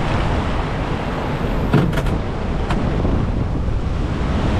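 Surf washing over and around rocks, with wind buffeting the microphone. A few sharp knocks about two seconds in, and one more shortly after.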